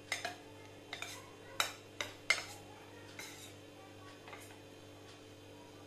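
A metal spoon clinking and scraping against a steel bowl as a ball is rolled in batter, several light clinks, mostly in the first three and a half seconds.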